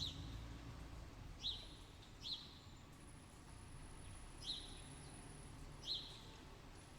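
A bird giving short, sharp chirps, five of them at irregular intervals, over a faint low rumble.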